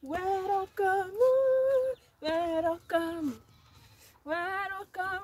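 A woman singing a traditional local welcome song unaccompanied, in short sung phrases separated by brief pauses, with some notes held steady.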